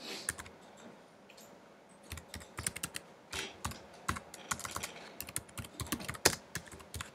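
Typing on a computer keyboard: a few scattered keystrokes, then a quick run of key clicks from about two seconds in.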